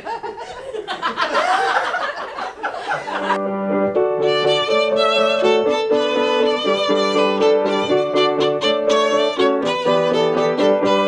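Voices for about the first three seconds, then a fiddle starts playing a lively tune with notes changing every fraction of a second.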